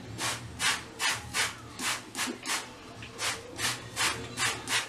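Hand spray bottle of water misting hair, squirted over and over in short hissing sprays, about three a second.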